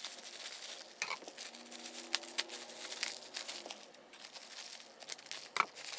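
Plastic bubble wrap crinkling as it is handled and cut open with scissors, a string of small irregular crackles and clicks.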